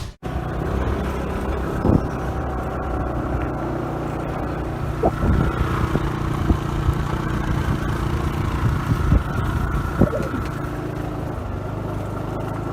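A car running steadily on the road, with engine and road hum and a few short knocks.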